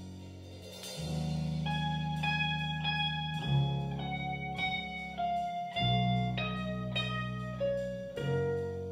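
Live band playing a slow instrumental passage: a single-note electric guitar melody over held bass and keyboard chords that change every couple of seconds.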